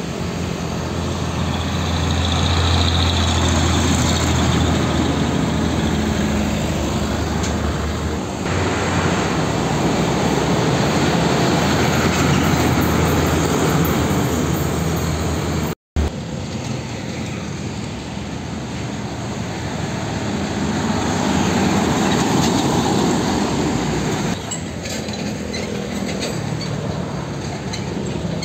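Diesel engines of old Nissan Diesel container trucks passing close by: a low engine drone with tyre and road noise, swelling as the first truck approaches and goes by. After a brief dropout about halfway through, a second truck's engine swells and fades.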